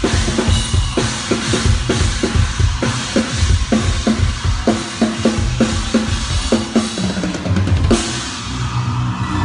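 Drum kit played in a steady groove of bass drum, snare and cymbals, over steady low notes, with a cymbal crash just before eight seconds in.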